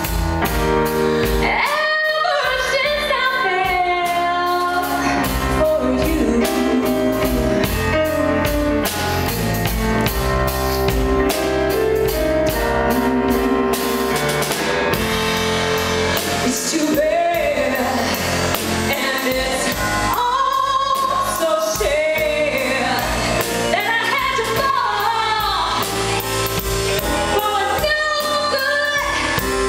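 A woman singing a ballad live into a microphone, backed by a band with drums and guitar.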